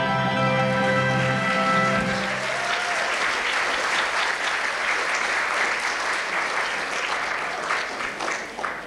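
The last chord of a stage song is held and ends about two seconds in; an audience then applauds, a steady clapping that thins out near the end.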